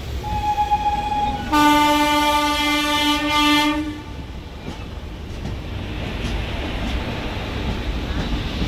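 A train horn sounds: a brief thinner note about a quarter second in, then a loud sustained blast of about two and a half seconds that stops about four seconds in. Under it and after it runs the steady noise of a passenger train running on the rails.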